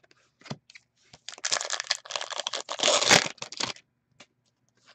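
Trading cards being handled and flipped through by hand. A few light clicks, then, from just over a second in, about two and a half seconds of dense scraping rustle as the card stock slides and rubs against itself.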